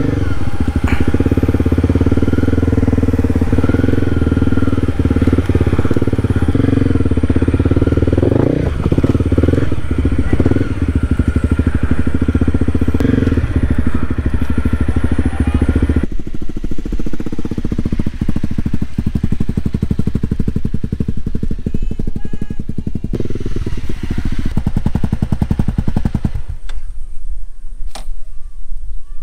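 Honda CRF250 Rally's single-cylinder engine running as the bike is ridden slowly over dirt. Near the end it settles to an even idle.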